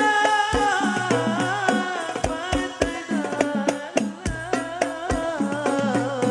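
Background music: an Arabic song with a sung melody over hand drums beating a steady rhythm.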